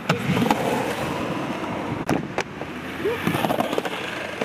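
Skateboard wheels rolling on concrete, broken by several sharp clacks of the board, two of them close together about two seconds in.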